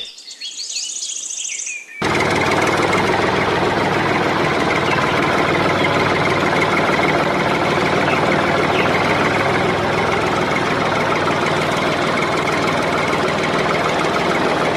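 Tractor engine running steadily, starting abruptly about two seconds in. It is an engine sound laid over a toy tractor that is pulled along on a string. Faint bird chirps come before it.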